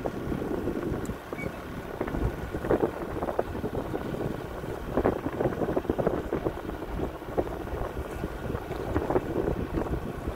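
A boat on the water, with wind buffeting the microphone in uneven gusts and water noise against the hull.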